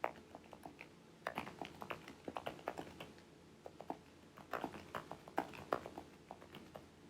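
Typing on a computer keyboard: irregular light key clicks, some coming in quick runs.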